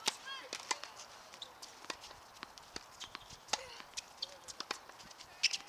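Tennis serve and rally on a hard court: a sharp racket-on-ball strike right at the start, then a string of ball hits and bounces at irregular intervals, each a short crisp pop.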